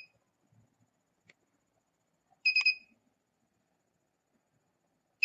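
Electronic buzzer of a homemade Arduino alarm clock going off at the set alarm time: groups of four quick, high beeps repeating about every two and a half seconds.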